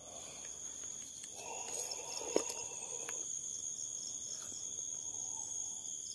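Steady, high-pitched calling of night insects such as crickets. Soft rustling and one sharp click come from hands handling the bait and hook about two seconds in.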